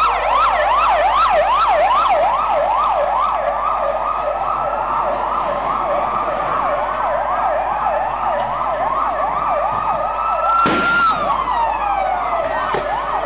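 Two ambulance sirens sounding together: one a fast yelp, rising and falling about three times a second, the other a slow wail that climbs and then drops off about eleven seconds in. A brief loud noise comes just before the drop.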